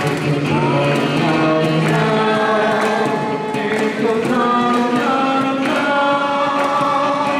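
A vocal group singing a medley in harmony, backed by an acoustic guitar and a beatboxed beat.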